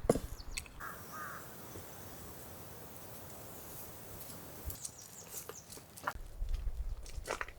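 Quiet outdoor background with a short bird chirp about a second in, then scattered light clicks and taps in the last few seconds.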